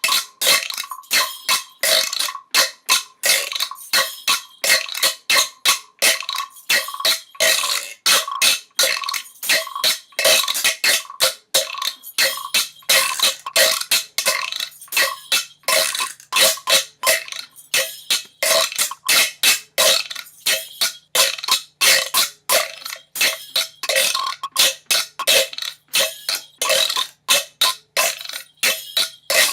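A person breathing rapidly in short, sharp breaths, about three a second, without a break.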